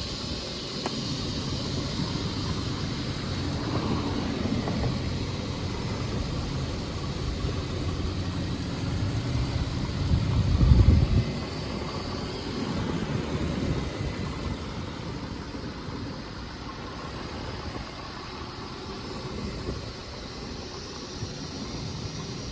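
Infiniti M37's 3.7-litre V6 idling steadily, heard from over the open engine bay, with a brief louder low rumble about halfway through.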